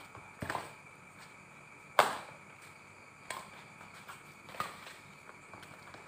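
Badminton rackets striking a shuttlecock in a rally: sharp cracks about every one and a half seconds, the loudest about two seconds in.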